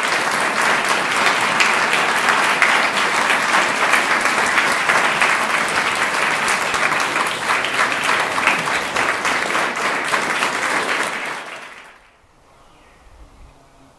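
An audience applauding, many people clapping steadily, dying away near the end.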